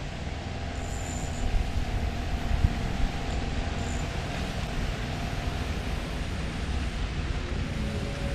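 Small boat's outboard motor running steadily under way, with wind rushing over the microphone.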